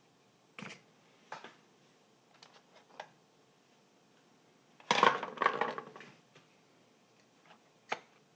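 Hand tools and loudspeaker parts being handled: a few light clicks and taps, then a louder second-long burst of scraping and knocking about five seconds in, and a single click near the end.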